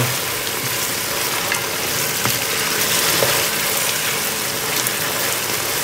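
Chicken thigh pieces sizzling steadily in hot oil in a pot.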